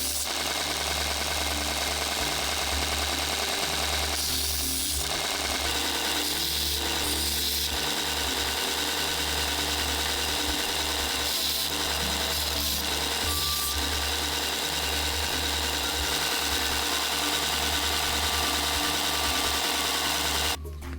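A power tool running steadily on the workpiece, with soundtrack music underneath; the tool sound stops abruptly just before the end.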